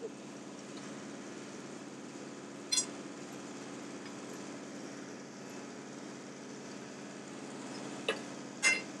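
Soil drill rig's engine running steadily, with steel drill rods clinking against metal: one ringing clink about three seconds in and two more close together near the end.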